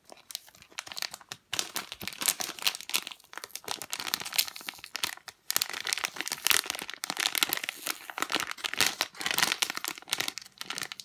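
Plastic squishy packaging crinkling, with irregular crackles as it is handled and opened.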